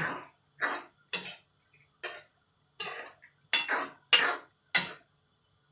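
Kitchen utensils knocking and clinking against cookware, about eight separate strikes at uneven intervals, the loudest near the middle.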